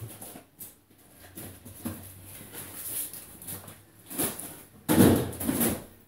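Groceries and plastic carrier bags being handled and lifted out of plastic delivery crates: rustling and light knocks, with the loudest knocks about five seconds in.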